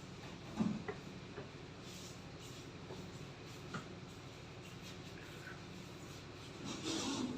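Quiet handling noises from PPR pipe butt-fusion work: a few light knocks and taps, then a louder scraping rustle near the end, over a faint steady hum.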